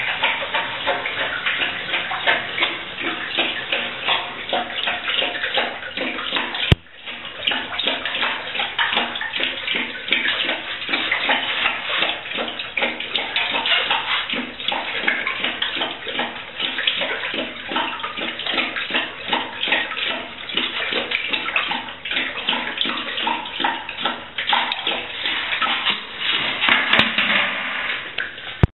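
Great Dane lapping water from a toilet bowl: a continuous run of quick, wet laps with a splashy echo from the porcelain, briefly broken about seven seconds in.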